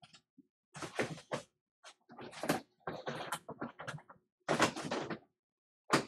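Rummaging through parts and containers: a run of irregular clattering and rustling handling noises, coming in about six short bunches.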